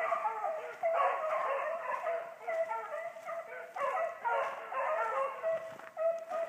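A pack of beagles baying as they run a rabbit, several dogs' voices overlapping without a break.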